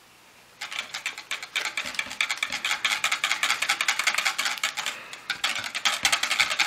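Wire whisk beating dry yeast into honey water in a plastic measuring jug: a fast, clicking rattle of wires against plastic, starting under a second in and easing off briefly about five seconds in.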